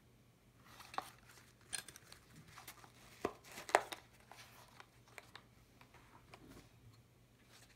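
Handling noise from a Bianchi M12 nylon military holster and magazine pouch: nylon fabric rustling with scattered small clicks and knocks, the loudest pair a little past three seconds in as the holster's flap is lifted.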